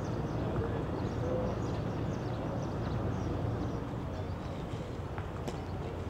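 Horse's hooves on the dirt racetrack over a steady low outdoor rumble, with faint high chirps and a single sharp click about five and a half seconds in.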